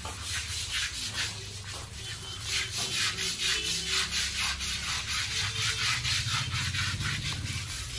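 Rough scrubbing of an elephant's hide by hand: quick, repeated rasping strokes as the head and trunk are scoured during its bath.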